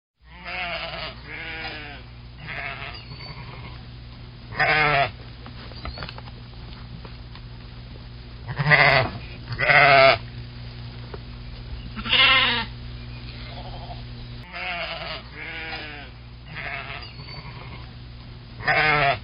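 Livestock bleating, a dozen or so wavering calls one after another, a few of them much louder and sharper than the rest, over a steady low hum.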